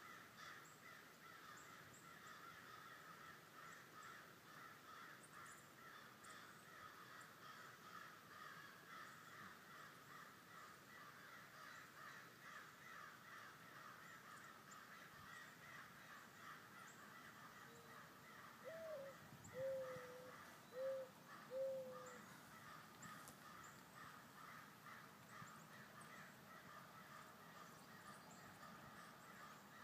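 Quiet outdoor ambience with a faint, steady chirring chorus. About nineteen seconds in, a bird calls four short times, each call rising then dropping, and these calls are the loudest sound.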